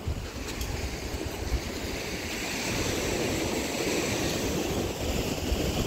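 Wind blowing across the microphone over the wash of surf on the beach, slowly growing louder.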